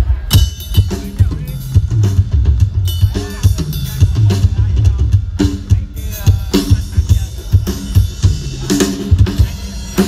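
A drum kit played loud through a large outdoor TW Audio PA system during a drum sound check. Heavy kick drum hits with snare and tom strokes come in a busy pattern, and the low end booms.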